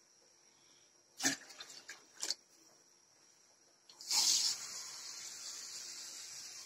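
Two short knocks about a second apart, then water pouring into a saucepan from about four seconds in, loudest at first and then steady, cutting off suddenly.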